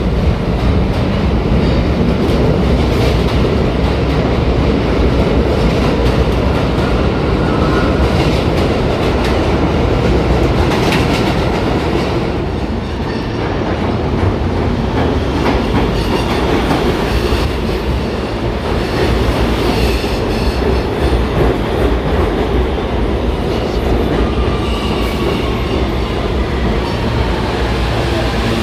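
New York City Subway train moving through the station: a heavy steady rumble with wheels clattering over the rail joints.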